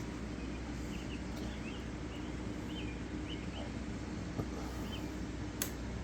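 A small bird chirps in short, scattered calls over a steady low hum, with a couple of light clicks in the second half.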